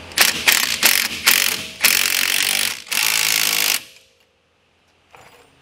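Cordless impact wrench hammering on a bolt. It comes in a few short bursts, then two longer runs of about a second each, and stops just under four seconds in.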